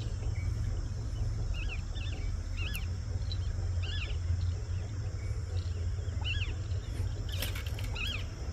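Small birds calling: short, arched chirps repeated about once or twice a second over a steady low rumble, with a brief rustle near the end.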